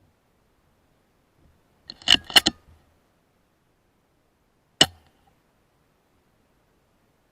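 Weihrauch HW100 PCP air rifle handling and firing: a quick cluster of sharp metallic clicks about two seconds in, then one single sharp report nearly three seconds later.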